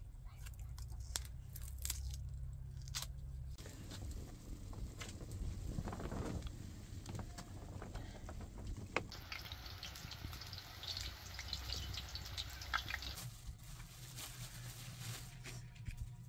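Raw chicken being cut with a knife in a metal bowl, with a few sharp clicks. It is followed by a pot over a wood fire sizzling and hissing with small crackles as it is stirred with a wooden spoon.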